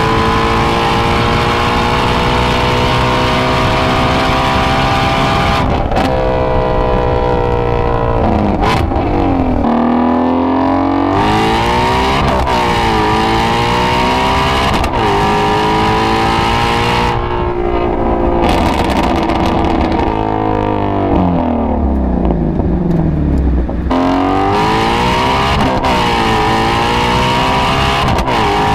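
2017 Ford Mustang Shelby GT350's 5.2-litre flat-plane-crank V8 under hard throttle. Its pitch climbs for about six seconds, drops sharply, then rises and falls several more times. Past the middle it falls away over a few seconds, then jumps up and climbs again.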